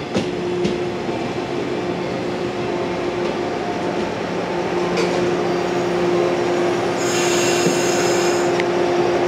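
JR West electric train running slowly along the platform: steady rolling noise with a constant hum, a few sharp clicks from the wheels, and a high wheel squeal for about a second and a half near the end.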